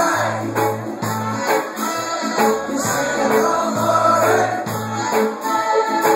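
Reggae band playing live: a repeating bass line under guitar and percussion, with a shaken tambourine-like rattle.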